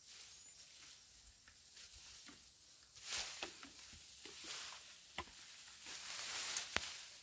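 Dry grass rustling and crackling, with a few sharp snaps, as wild Asian elephants pull at and feed on tall grass. It is quiet at first, and the rustling swells from about three seconds in.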